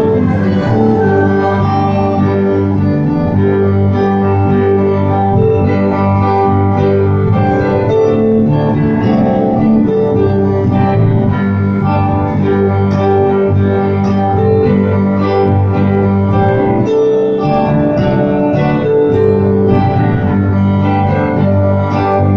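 Electronic keyboard on an organ sound playing a hymn tune in held chords with a melody line over them.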